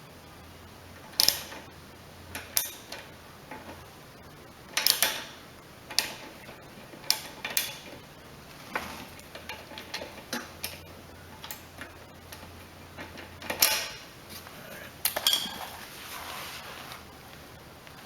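Metal wrench clicking and clanking against the engine in irregular strokes as a nut on the replacement carburetor is tightened down.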